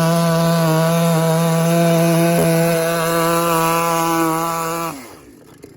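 93cc chainsaw engine of an RC pulling vehicle running steadily at high revs, then cutting out about five seconds in and quickly winding down, with a few faint clicks after.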